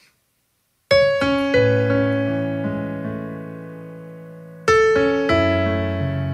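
Piano playing a slow ballad introduction: a chord struck about a second in, left ringing and fading away, then a new chord a little past the middle followed by more notes.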